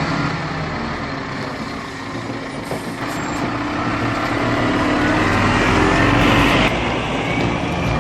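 Heavy log truck's engine running under load, growing louder through the middle, then dropping off sharply about a second before the end.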